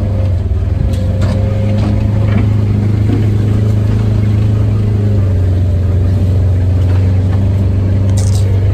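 Motor vehicle engine running at a steady speed while driving, a loud even hum, with a few light knocks and rattles, about a second in and again near the end.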